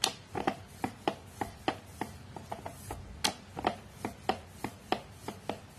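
Wooden rolling pin rolling out dough thin on a wooden rolling board, giving a quick series of light knocks, about three or four a second.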